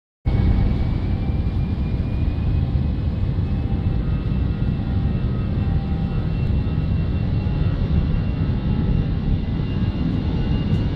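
Airbus A320's jet engines at take-off power: a loud, steady, deep rumble with a thin fan whine that slowly rises in pitch.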